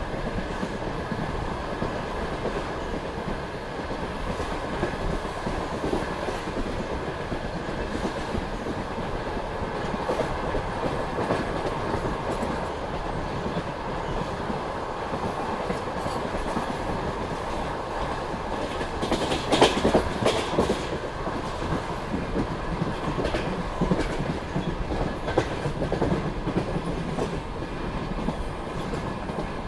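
Passenger train coach running along the track: a steady rumble of wheels on rails with the clickety-clack of wheels over rail joints, and a louder cluster of clacks about two-thirds of the way through.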